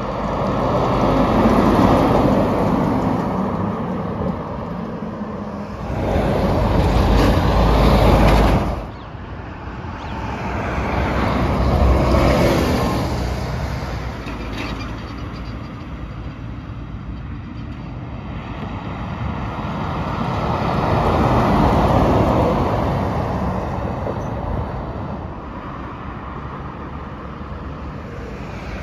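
Heavy trucks and a bus driving past one after another on the road. Each engine and tyre noise swells and fades as it goes by, about four pass-bys in all, and one cuts off suddenly about nine seconds in.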